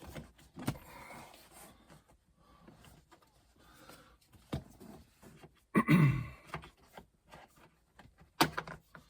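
Plastic trim cover on a car's sun visor mount being pried and popped down by hand: scattered clicks and plastic snaps, with a louder clunk about six seconds in.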